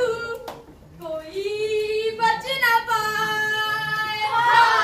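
A group of schoolchildren singing together, holding long steady notes. Near the end the voices swell louder and slide down in pitch.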